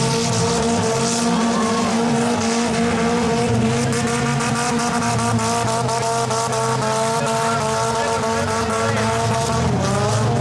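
Several figure-8 race car engines running hard at fairly steady revs as the cars race around the track.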